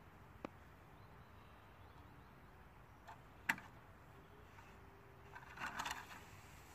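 Quiet outdoors with a few small clicks and one sharp knock about halfway through, then a short scraping crunch near the end as a toy truck is pushed off and slides down through the snow on a metal slide.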